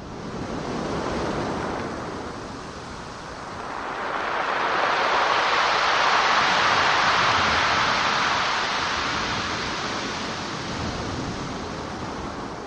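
Pacific Ocean waves breaking and washing over a gravel and pebble beach. A smaller swell comes first, then a bigger wave builds from about four seconds in and slowly recedes.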